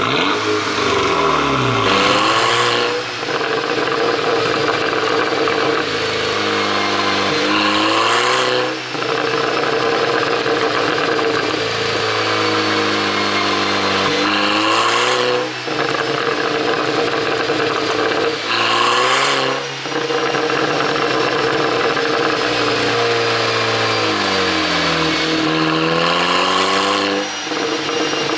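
Volkswagen Golf GTI turbocharged four-cylinder engine revved repeatedly, the revs climbing and falling about six times, with sharp cracks around the rev peaks. The ECU is tuned to make exhaust pops on the overrun.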